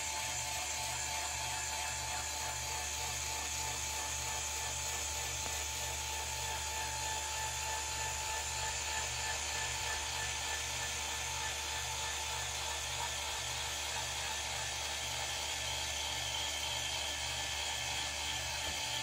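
Linear actuator's electric motor and gearbox running steadily with a thin whine as it drives the coop door bracket up its slide rails.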